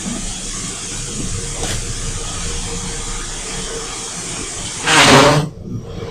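Steady steam hiss with a faint hum in a steam-turbine plant room, the boiler online and steam trickling through the stopped turbine's slightly cracked casing drains. About five seconds in, a loud, brief rushing burst cuts off suddenly.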